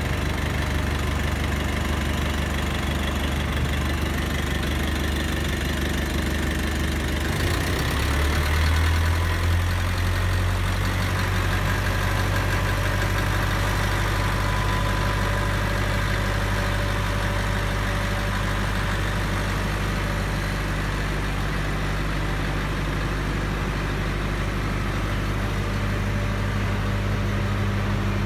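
Diesel engine of a 10 kW silent diesel generator set running steadily, heard with the enclosure doors open. Its note changes about seven seconds in, then holds steady again.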